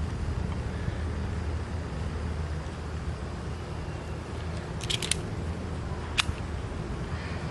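Steady low outdoor rumble, with a quick cluster of sharp clicks about five seconds in and a single sharp click about a second later.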